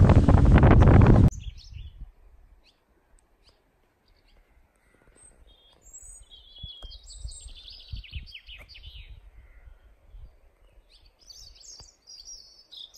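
Wind buffeting the microphone over a speeding boat, loud, stops abruptly about a second in. Then small birds singing, with quick chirps and trills, over faint low wind rumble.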